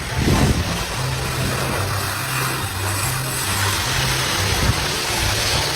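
A machine or engine running steadily with a loud, even noise, over background music with a stepping bass line.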